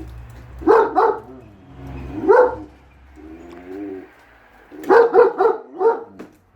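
A German Shepherd barking loudly in short bursts: two about a second in, one more just after two seconds, then a quick run of four near the end. In between, a Siberian Husky answers with drawn-out, wavering howl-like talking.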